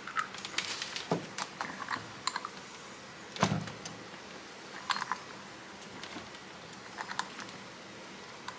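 Metal hardware and tools clinking and clattering irregularly while a bolt is set up to draw a urethane bushing into a suspension control arm, with one louder clunk about three and a half seconds in.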